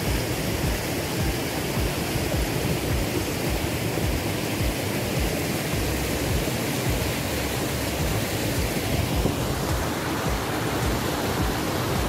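Stream water rushing over rock rapids in a steady, even torrent; about three quarters of the way through the rush grows fuller.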